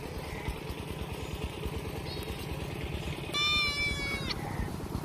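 A young lamb bleating: a faint short call about two seconds in, then a loud, high-pitched bleat lasting about a second. A steady low rumble runs underneath.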